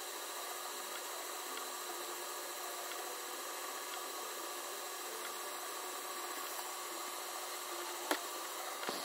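Electric potter's wheel spinning a clay vase, a steady whir and hiss that does not change. A single sharp click about eight seconds in.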